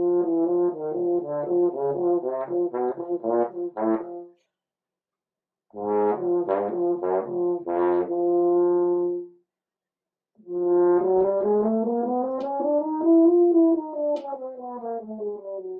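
French horn played solo in three short phrases of quick notes separated by brief silences, the last phrase running up a scale and back down. Heard through a MacBook Pro's built-in microphone.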